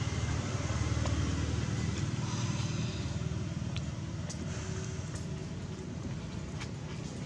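Low steady rumble of a motor vehicle, a little louder for the first few seconds, with a few faint ticks over it.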